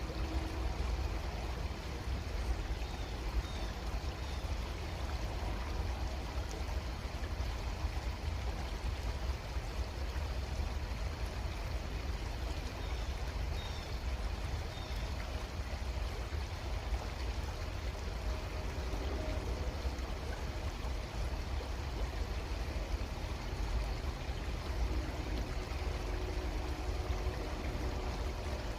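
Creek water flowing steadily, an even rushing with a deep low rumble underneath. A few faint, short high chirps come twice.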